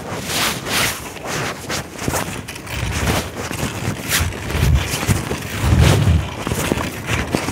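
Cloth rubbing and scraping over a phone's microphone while it records from inside a pocket, in short irregular rustles, with muffled low rumbles around the middle.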